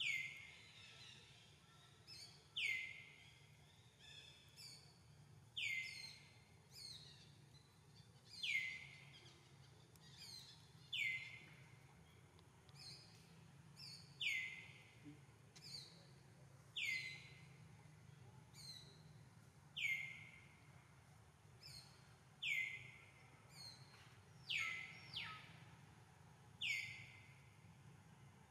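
A bird calling over and over, a sharp falling note about every three seconds, with fainter short chirps between.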